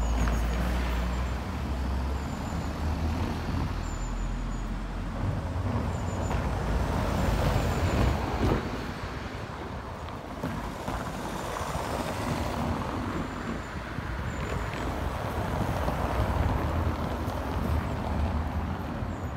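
Cars passing on a cobbled street, their engine and tyre noise swelling and fading several times as each goes by.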